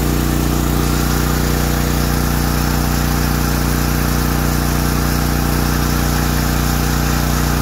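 Generac MegaForce 6500 portable generator's engine running steadily under a 5,000-watt load, holding an even, unchanging speed.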